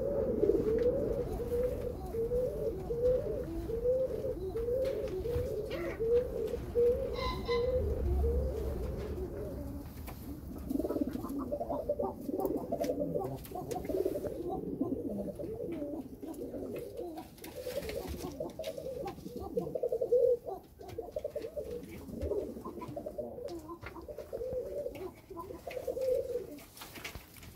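Domestic pigeons cooing: a run of repeated coos at about two a second, then several birds cooing over one another from about eleven seconds in.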